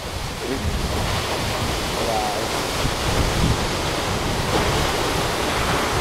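Steady rushing of a tall waterfall pouring into its plunge pool, with wind buffeting the microphone.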